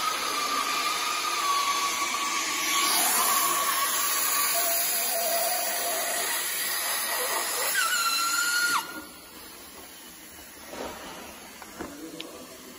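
Hot-air welding machine running: a steady blower hiss with whining motor tones that shift in pitch. About nine seconds in it drops off suddenly to a quieter hiss with a few light clicks.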